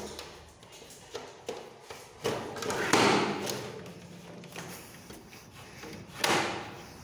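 A few light knocks, then a louder thud with a longer noisy scrape about three seconds in, and another thud near six seconds.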